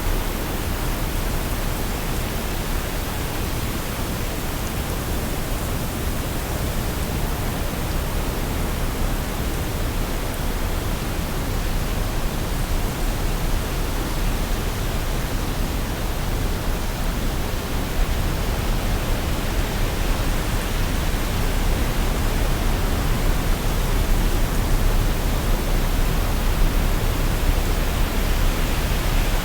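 Waterfall: a steady, dense rush of falling water, growing slightly louder about two-thirds of the way through.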